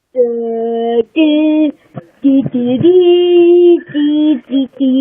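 A high voice singing a short tune of long, steady held notes, each lasting up to about a second, with brief breaks between them.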